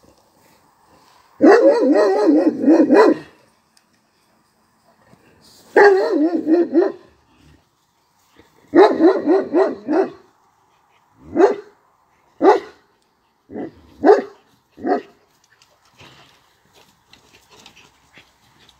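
Caucasian Shepherd dog barking: three runs of quick barks, then five separate barks.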